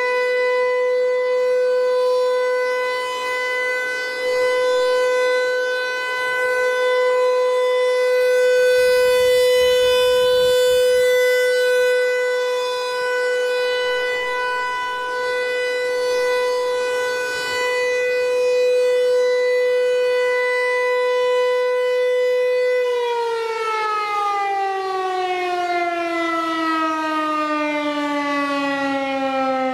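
Federal Signal Equinox electronic outdoor warning siren sounding a steady tone for its monthly test. About 23 seconds in the pitch starts sliding down steadily as the siren winds down.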